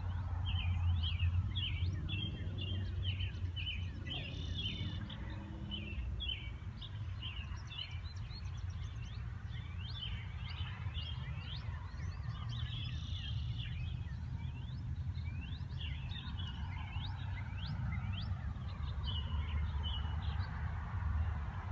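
Several songbirds chirping and calling in many short, rapid notes, over a steady low rumble.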